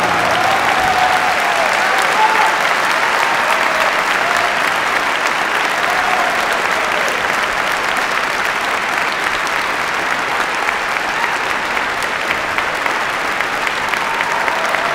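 Concert-hall audience applauding steadily and densely after a piano performance, with voices calling out now and then.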